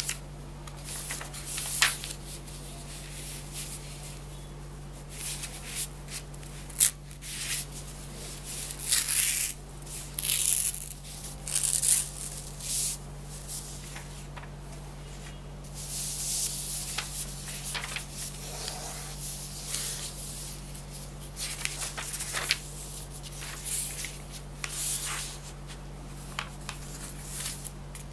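Sheets of paper handled, slid and creased by hand on a tabletop: irregular rustles and crinkles, some louder and longer than others, over a steady low hum.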